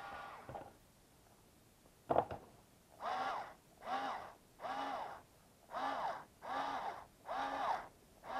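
A bird calling: a couple of calls at first, then from about three seconds in a steady run of repeated calls, each rising and falling in pitch. A sharp click comes about two seconds in, just before the run.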